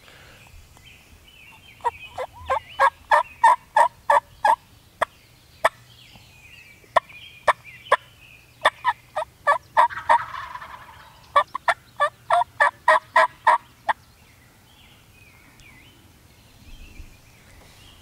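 Wild turkey gobblers gobbling on the roost: loud, rapid, rattling gobbles in several bursts through the first two-thirds, then quiet.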